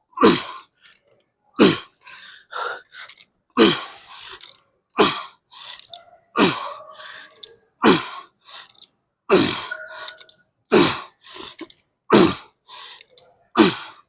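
A weightlifter's forceful grunting exhales, one with each rep: about ten short bursts, roughly one every second and a half, each dropping in pitch, as a set of arm exercises is pushed to a burning finish.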